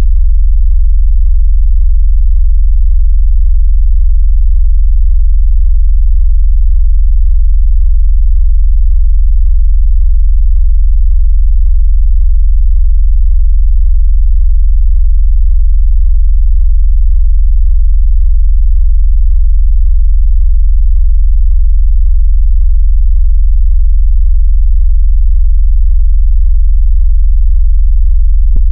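A loud, very deep, steady electronic tone with a slight fast flutter: a synthesised sub-bass vibration tone made to make a phone shake and push water out of its speaker, also used as a bass test.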